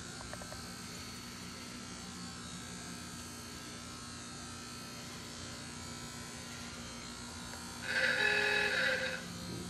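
Electric hair clippers buzzing steadily as they cut hair. About eight seconds in, a phone ringtone sounds over the buzz for about a second and a half.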